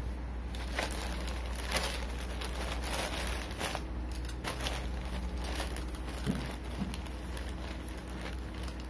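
Plastic courier mailer bag crinkling and rustling in irregular bursts as hands handle it, over a steady low hum.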